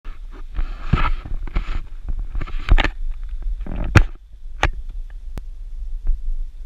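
Handling noise from an action camera on a hand-held selfie stick: irregular rubbing and scraping, then a few sharp clicks and knocks about four to five seconds in, over a low wind rumble on the microphone.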